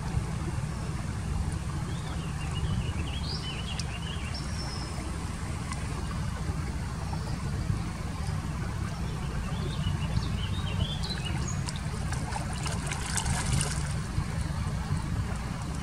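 Outdoor ambience at a shallow carp pool: water trickling and splashing over a steady low rumble, with small birds chirping now and then and a short burst of splashing hiss about thirteen seconds in.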